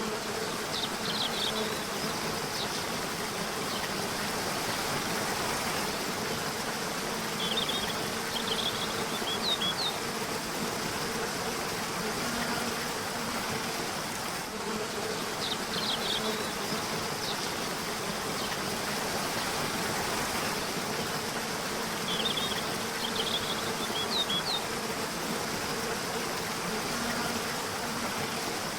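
Steady rushing of a river with a low wavering buzz throughout, and songbirds chirping in short high bursts about four times.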